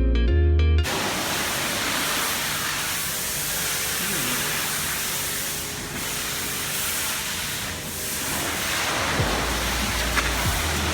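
Guitar music cuts off under a second in, giving way to the steady hiss of a pressure-washer wand spraying water. A low steady hum joins about nine seconds in.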